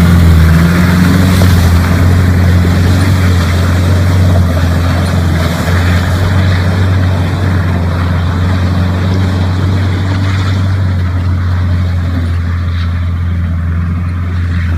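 ARO 4x4's engine running steadily as it drives through slushy snow, with tyres churning the slush, the sound fading slightly as it pulls away.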